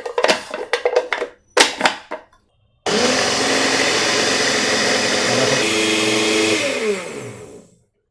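A few sharp clicks and knocks, then a Walton 250 W blender motor switched on about three seconds in: it runs loud and steady for about three and a half seconds, then spins down with a falling pitch after it is switched off. This is a test run after fitting new rubber drive couplings and a new jug kit.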